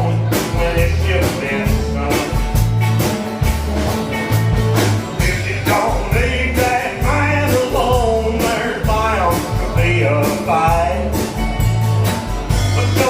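Live rock band playing a bluesy song: drums keeping a steady beat under a repeating bass line, with a lead melody bending over the top.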